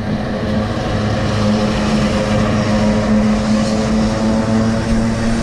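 A motor vehicle's engine running close by in the street: a steady, even hum that grows slightly louder, then cuts off suddenly at the end.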